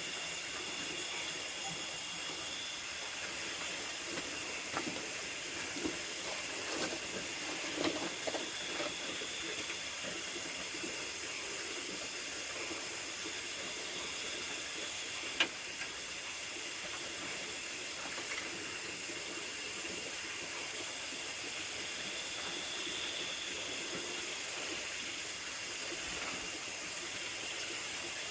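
Chorus of nocturnal rice-field insects: several steady high-pitched trills, with a faster regular pulsing chirp high above them. A few light knocks sound in the first several seconds, and one sharp click comes about halfway through.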